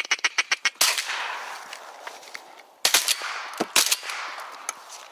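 Three shotgun shots during a duck hunt over open marsh water: one about a second in, then two close together near the three- and four-second marks. Each shot leaves a long echo rolling away. The shots follow a fast rattling chatter at the start.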